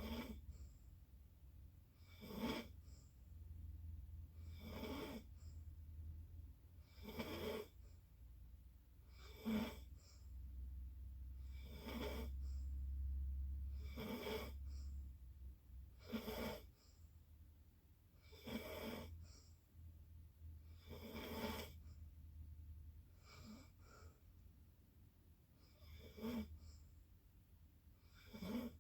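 Sleep snoring in a steady rhythm: short snores about every two and a half seconds, about a dozen in all.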